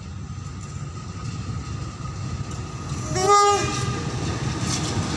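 CC 201 diesel-electric locomotive approaching, its engine rumble growing louder, with one short horn blast about three seconds in.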